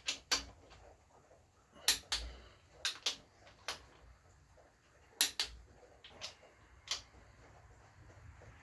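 A torque wrench clicking in ones and twos every second or so as the crankshaft main bearing cap bolts of a GM 4.3 V6 are torqued, in this first stage to 25.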